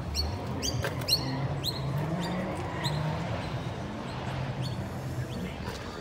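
Short, high squeaks repeated irregularly, each one quickly falling in pitch, over a steady low hum and background murmur.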